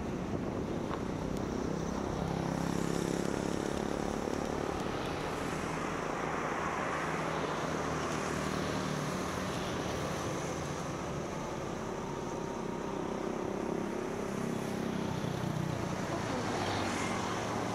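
A vehicle engine running steadily under a haze of road noise, its low hum drifting slightly up and down in pitch.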